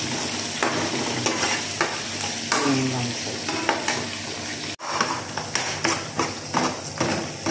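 Chicken pieces shallow-frying in hot oil in a pan, a steady sizzle with frequent crackles. About two-thirds of the way through, a brief break gives way to a spatula stirring and scraping egg and onion in a hot frying pan over a lighter sizzle.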